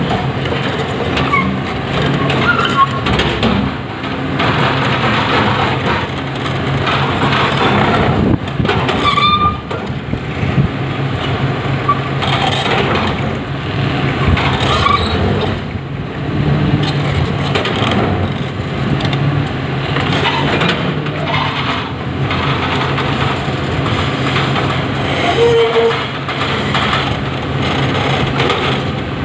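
Komatsu PC300 hydraulic excavator's diesel engine running steadily as the machine pushes its bucket against a cut stone block, with a rough noisy layer over the engine hum and a few brief high squeals.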